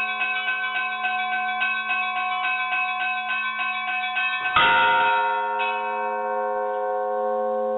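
Church bells pealing: small bells struck in quick succession, about five strokes a second. A little over four and a half seconds in, a heavy strike rings out loudest, with another about a second later. The bells then hum on without the quick strokes.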